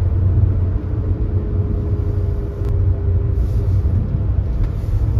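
Steady low rumble of road and engine noise inside a moving tour coach.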